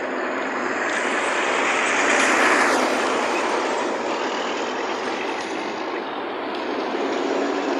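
Road traffic of heavy trucks and cars passing close by, loudest about two and a half seconds in as a truck goes past with a falling pitch.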